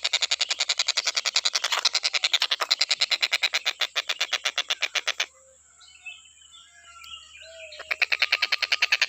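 Tengkek buto kingfisher giving a fast, rattling chatter of about a dozen sharp notes a second. The rattle breaks off a little past halfway and faint chirps and short whistles of other birds show through, then the rattle starts again near the end.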